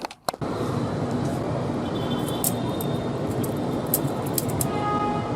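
Steady rumble like road traffic, with scattered sharp metallic clicks of a balisong's handles clacking as it is flipped.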